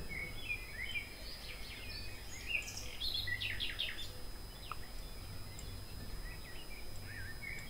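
Faint bird chirps in the background: a scatter of short calls that rise and fall, most of them in the first half, over a low steady hum.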